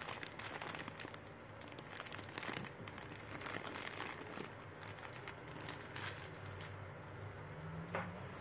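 Packaging crinkling and rustling as it is handled, in irregular bursts of short crackles.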